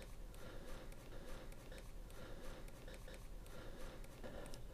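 Faint small clicks and scratches of fingers threading a small metal locking ring onto a motorcycle tyre's valve stem, over a faint steady hum.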